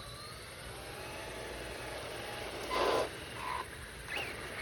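Electric motor and drivetrain of an Arrma Mega Typhon RC car whining as it is driven, the pitch gliding up and down with speed. A louder burst of motor and tyre noise comes about three seconds in. The car has a newly fitted motor and a metal spur gear with a larger pinion.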